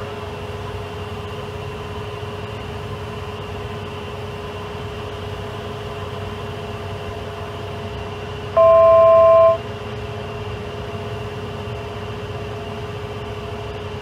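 Steady jet cockpit background noise with a constant hum. About eight and a half seconds in, a loud electronic alert tone of two pitches sounds for about a second and stops abruptly.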